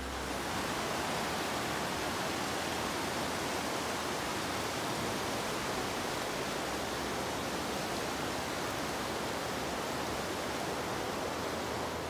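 Swift mountain river rushing over a rocky bed: a steady, even sound of running water.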